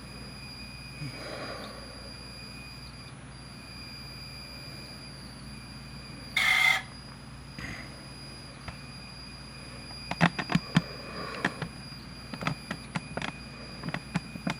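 Pioneer CT-W840R dual-well cassette deck running with a steady high-pitched squeal, which the owner suspects is a slipping belt. A short loud noisy burst comes about six seconds in, and a run of sharp clicks comes near the end.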